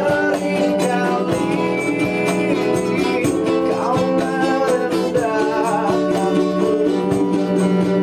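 A band playing a pop song in rehearsal: electric and acoustic guitars over a steady beat, with a voice singing.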